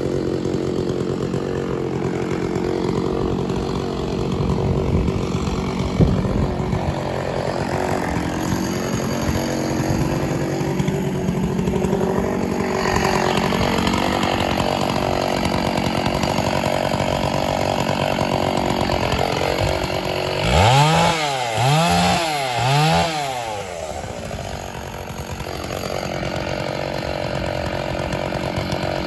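Stihl 066 two-stroke chainsaw running steadily, revved up and back down three times in quick succession about two-thirds of the way through. A single sharp knock sounds about six seconds in.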